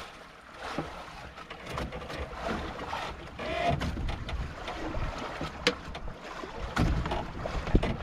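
Water lapping at a small boat's hull, with wind gusting on the microphone and a few sharp knocks on the boat, the loudest near the end.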